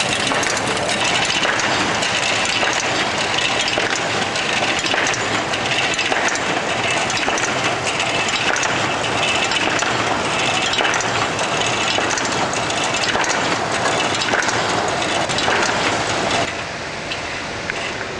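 Automated sheet-handling machine with a powered roller conveyor running: a steady mechanical clatter thick with small clicks and knocks. About a second and a half before the end it drops in level to a smoother hiss.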